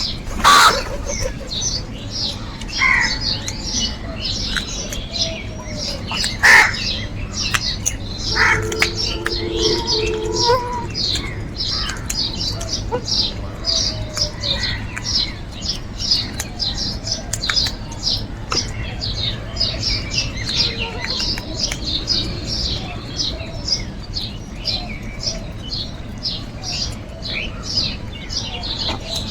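Crows cawing a few times in the first ten seconds over a steady chorus of rapid, high chirping from many small birds.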